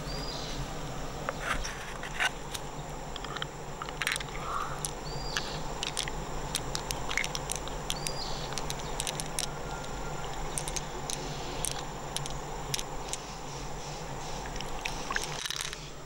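Irregular sharp clicks and scrapes over a steady outdoor hiss, with a short high chirp heard three times.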